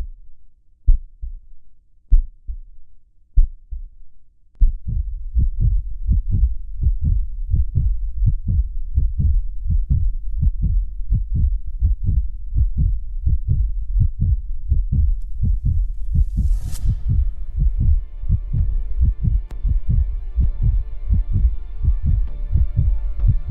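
Intro music built on deep heartbeat-like bass thumps. A few spaced thumps come first, then a steady run of about three a second. Near the two-thirds mark a rising whoosh sweeps up into a sustained synth chord that holds over the pulsing.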